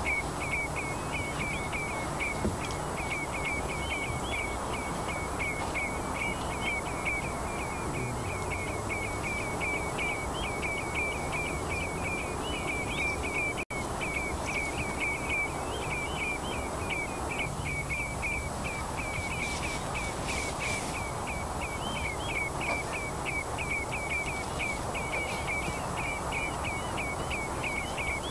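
An animal chirping over and over, about four short, high chirps a second at the same pitch, over a steady outdoor hiss. The sound drops out for an instant about halfway through.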